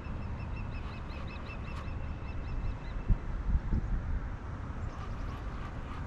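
A bird's quick series of short, repeated high chirps, about five a second, fading out about three seconds in, over a steady low rumble, with a few dull knocks around the middle.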